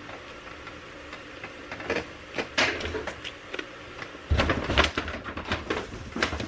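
A large paper shopping bag rustling and crinkling as a hand rummages inside it for packaged groceries, with irregular handling knocks and thumps. It starts about two seconds in and is loudest around four to five seconds.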